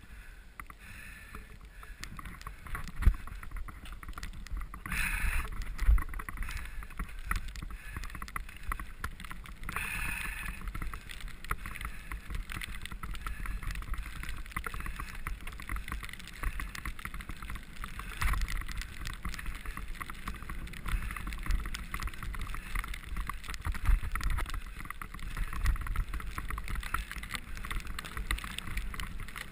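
Mountain bike ridden over a snowy, rutted forest trail, heard from a camera on the bike: a steady rumble of the tyres on snow and frozen ground with constant rattling and clicking of the bike, and a few sharper thumps over bumps.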